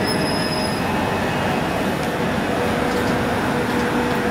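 Southern Class 377 electric multiple unit running into the platform, a steady rumble and hiss with a faint whine coming in during the second half.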